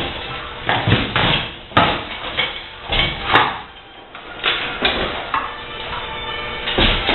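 Irregular knocks and clatters of hard dishwasher parts being handled and struck during disassembly, about eight sharp hits over a few seconds.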